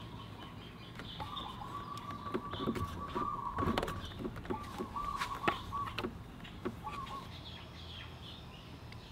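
Small birds chirping and whistling in the background, with light clicks and taps as the speedometer cable end is worked into the front hub's drive while the wheel is turned. The sharpest tap comes about five and a half seconds in.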